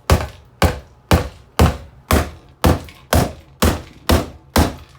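Ten sharp blows struck at a steady two a second against an alarm clock's glass screen, cracking the screen.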